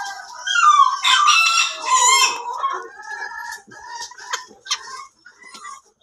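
A rooster crows once, a call lasting about two seconds, followed by chickens clucking in short repeated calls.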